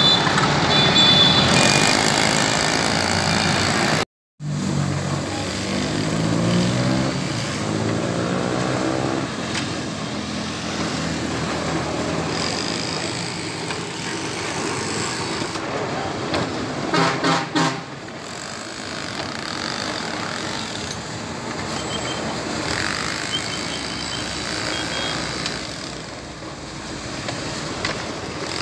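Small tilting-drum concrete mixer turning, its load of sand, gravel and mortar churning in the drum, with road traffic close by. A vehicle engine rises in pitch a few seconds in, and a horn toots several times in quick succession about halfway through.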